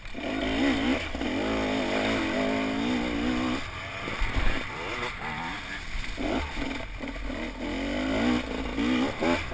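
Dirt bike engine revving on a rough track, its pitch rising and falling with the throttle. About three and a half seconds in it drops off for a couple of seconds, with a thump, then pulls hard again.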